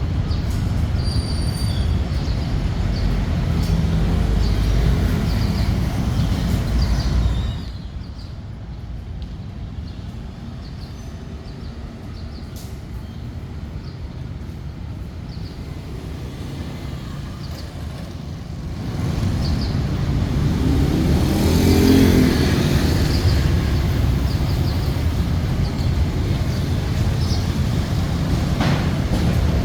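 Outdoor rumble of road traffic, dropping away for about ten seconds and then swelling again as a vehicle passes, loudest about two-thirds of the way in. A few faint high chirps near the start.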